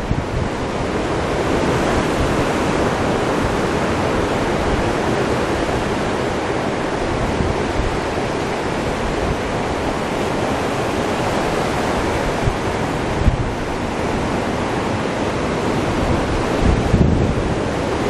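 Ocean surf breaking and washing up a sandy beach in a steady roar, with wind buffeting the microphone in low rumbles, strongest near the end.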